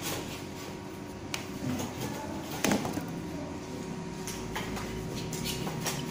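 Scattered clicks and knocks of metal copier drum-unit parts being handled and set against each other. A sharper knock comes about two and a half seconds in, over a steady low hum.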